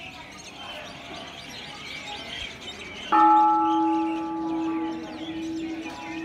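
A large pagoda bell struck once about three seconds in, ringing on with a deep steady hum and several higher tones that fade slowly. Small birds chirp throughout.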